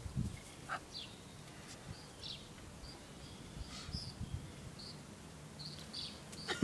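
Quiet outdoor ambience with birds chirping here and there in short high calls, and a few soft low thumps near the start and about four seconds in.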